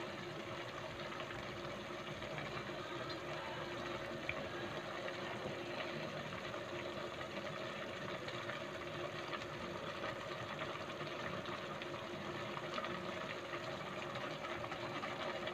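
Pot of chicken and vermicelli soup simmering uncovered on a stove: a steady hiss with light bubbling, over a faint steady hum.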